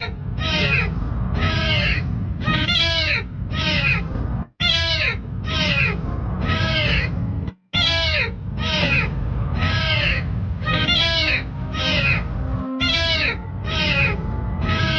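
A cat meowing loudly and insistently, one meow after another with barely a pause, over a low rumbling noise; the sound cuts out abruptly a few times.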